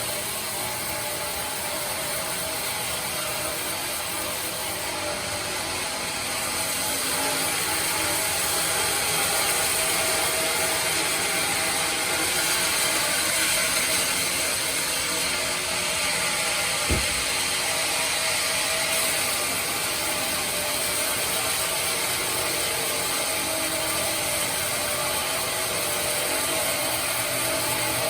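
Band sawmill running and sawing teak, a steady mechanical whir that grows louder about six seconds in and eases off again near nineteen seconds. A single short knock comes about seventeen seconds in.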